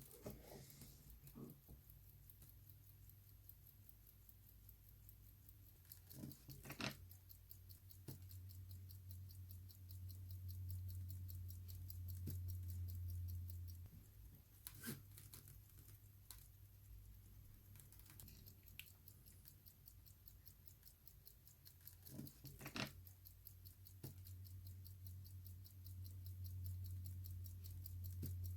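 Henry Beguelin gold pocket watch ticking fast and evenly, several ticks a second, showing that the movement runs. A few louder clicks break in near 7, 15 and 23 seconds, over a faint low hum.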